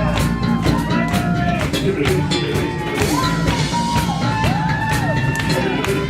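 Live soul band playing, with a drum kit keeping a steady beat under a melodic line.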